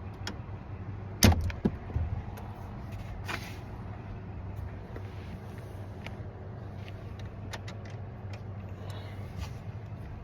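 A steady low hum with a sharp knock about a second in and scattered lighter clicks after it, from hand work on a 2005 Chevy Silverado's steering column covers.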